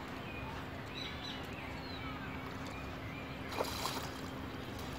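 Outdoor ambience: a steady background wash with faint bird chirps during the first couple of seconds and a steady low hum, broken by a brief noisy rustle about three and a half seconds in.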